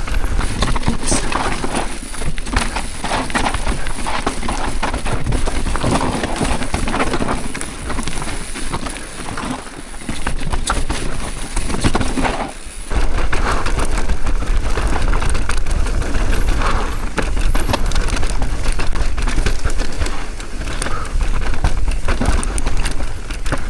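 Mountain bike descending a rough, dusty dirt trail: tyres rolling over dirt and rocks with steady clattering and rattling of the bike, and wind rushing over the microphone.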